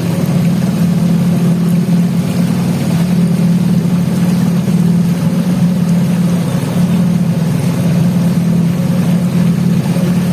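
Motorboat engine running at a steady cruising speed, a loud, even drone with no changes in pitch or speed.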